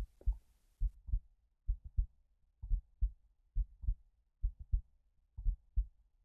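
A human heartbeat: a steady run of paired soft, low thumps (lub-dub), a little under one beat a second, about seven beats with no stomach growling between them.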